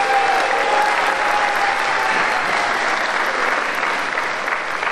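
Audience applauding after a choir performance, the clapping slowly dying down. A single voice holds a high whoop above it for about the first two seconds.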